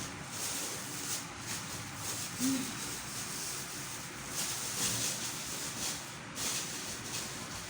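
Soft rustling and rubbing of packaging being handled, with a few brighter swells of noise.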